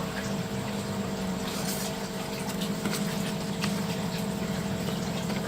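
Steady hum of a running water pump with water moving, and a few faint light clicks of handling.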